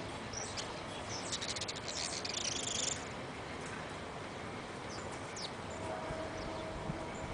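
White saffron finch singing: a fast buzzy chirr about a second and a half in, lasting about a second and a half, with a few thin high notes scattered before and after it. A bird just coming into song, its phrases still rough and heavy with chirring.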